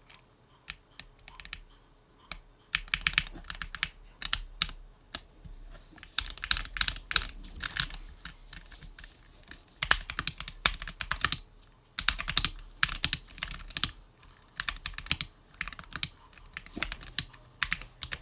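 Typing on a Win60 HE keyboard: bursts of rapid keystroke clicks broken by short pauses.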